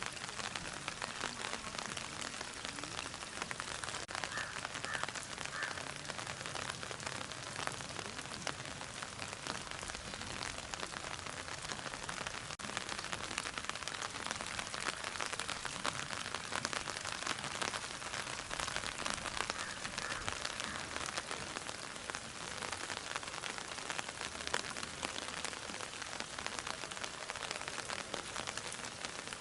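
Steady rain falling: an even, dense patter of drops.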